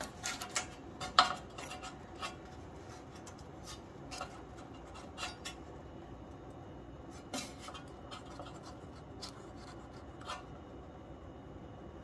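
Light metallic clicks and faint scraping of a steel feeler gauge blade and tools being worked against the valve rocker arm of a Briggs & Stratton engine, checking the intake valve clearance. A cluster of clicks comes in the first second and a half, then single clicks every second or two.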